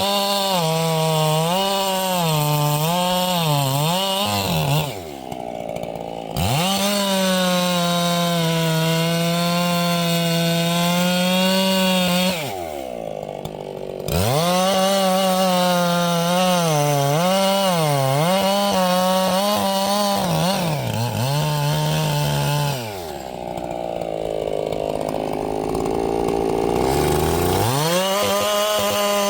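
Ported Echo 7310 two-stroke chainsaw running near full throttle while cutting firewood, its pitch dipping and recovering as the chain loads in the wood. The throttle is let off three times, about five, twelve and twenty-three seconds in, so the engine drops briefly before revving back up.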